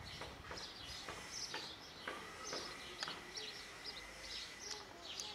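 Small birds chirping in quick, repeated high notes over steady outdoor background noise.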